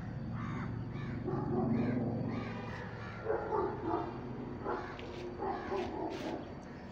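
Repeated short animal calls, irregularly spaced, over a low steady hum that fades after about four seconds.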